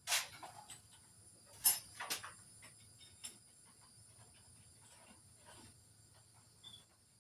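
Workbench handling noise: a few sharp knocks and clatters in the first two seconds, then faint scattered ticks, over a steady high-pitched insect drone, with a short high chirp near the end.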